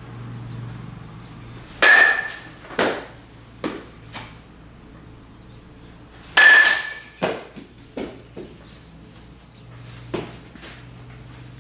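Metal baseball bat hitting a ball twice, about four and a half seconds apart, each a sharp ping with a brief ring, followed by smaller knocks as the ball strikes the cage and bounces on the floor. A fainter single knock near the end.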